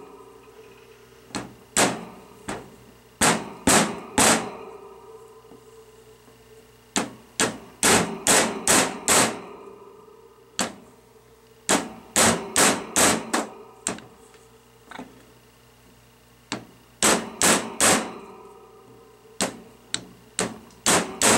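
A hammer taps a steel socket used as a seal driver, seating a shaft lip seal into a Hydro-Gear hydraulic pump's aluminium case. It strikes in quick runs of three to six blows with short pauses between them, and each blow rings briefly like metal.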